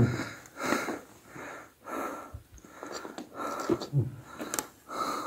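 A person breathing hard: short, noisy breaths about every two-thirds of a second, like panting.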